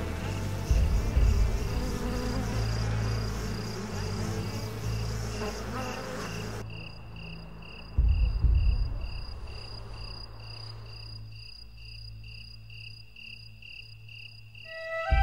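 Cricket-like insect chirping: a high-pitched pulse repeated evenly several times a second, over a low rumble that swells about a second in and again midway.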